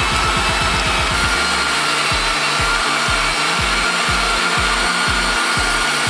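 Electric meat grinder running steadily with a motor whine while it grinds meat. Under it, background music with a kick drum: fast at first, then settling about two seconds in to a steady beat of about two a second.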